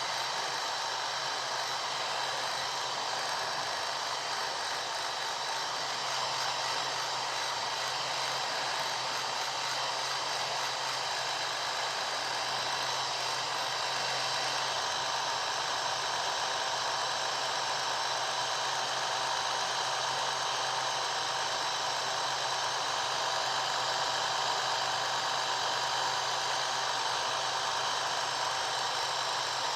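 Hair dryer running steadily: a continuous airy rush over a low motor hum, with no change in speed.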